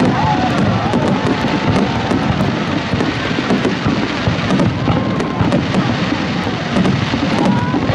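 Aerial fireworks shells bursting without a break: a dense, steady barrage of bangs with many sharp crackling pops throughout.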